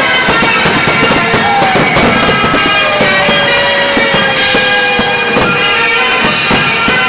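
Fireworks going off thick and fast: rapid crackling and bangs under several sustained whistles, with one long whistle slowly falling in pitch from about three seconds in.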